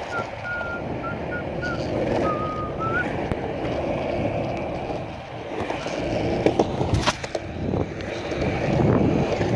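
Skateboard wheels rolling over pavement, a steady grinding rumble, with a few sharp clacks about seven seconds in. Over the first three seconds a thin, wavering whistle rides on top.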